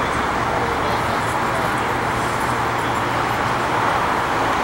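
Steady rumble and hiss of a 1926 Peter Witt streetcar as it slowly rotates on a turntable, with a low hum underneath and no sharp knocks.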